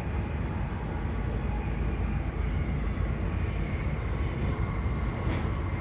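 Steady running noise of an electric passenger train heard from inside the carriage while under way: a low rumble with a faint high tone above it.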